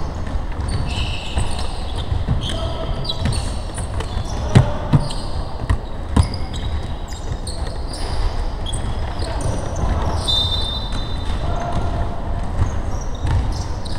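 Basketball game on a hardwood gym floor: the ball thuds as it is dribbled and passed, and sneakers squeak as players run and cut. A few sharper thuds stand out, the loudest about four and a half seconds in.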